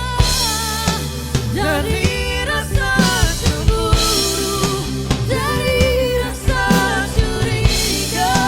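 Nokku XD-2000 electronic drum kit played along to a pop song with a sung vocal, the kit's sampled acoustic-style drum sounds heard straight from its module among the song.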